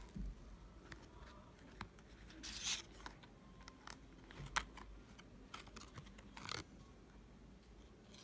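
Faint handling sounds of a paper card being slid out of a leather wallet's card slot: scattered light taps and clicks, with two brief scraping rustles, one about two and a half seconds in and one near six and a half seconds.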